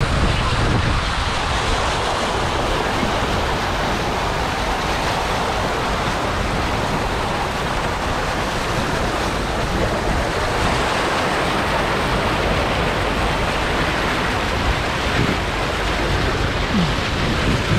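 Water rushing steadily down the start of a tube water slide's chute.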